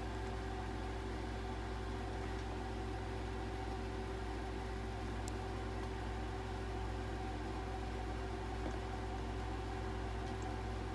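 Steady machine hum: a low drone with a couple of steady higher tones over a faint hiss, unchanging in level.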